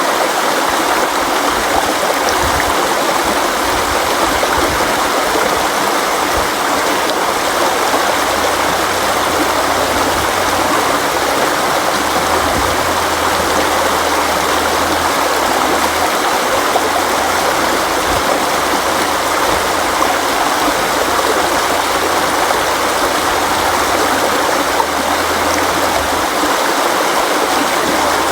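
River water flowing over rocks: a steady, dense rushing with gurgling, and a low rumble coming and going underneath.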